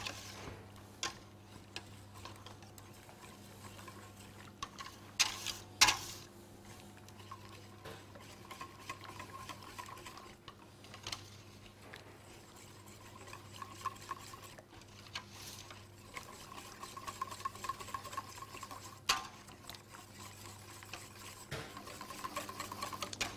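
Wire balloon whisk stirring hot cream and dark chocolate buttons into a ganache in a stainless steel bowl, with soft scraping and clicks of the wires on the metal and a few sharper taps about five and six seconds in and again near nineteen seconds. A steady low hum runs underneath.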